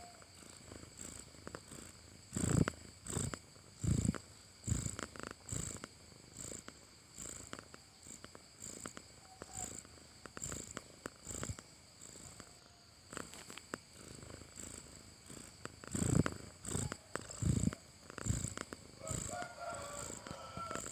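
Domestic cat snoring in its sleep: short, breathy snores in a quick, regular rhythm, with a few much louder snores near the start and again about three quarters of the way through.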